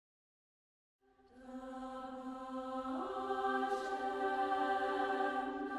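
Women's choir fading in about a second in, singing long held chords; about three seconds in, the lowest part moves up to a higher sustained note.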